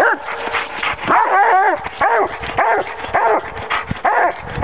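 Coonhounds baying in a steady run of short barks, about two a second, with more than one dog calling over each other at times.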